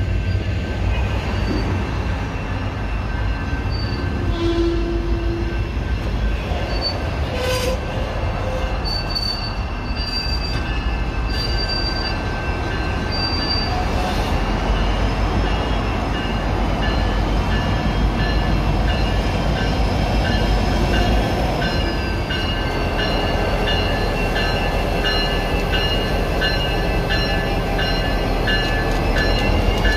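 Diesel locomotive and railcars moving on the rails, a steady low rumble with high, wavering steel-wheel squeal.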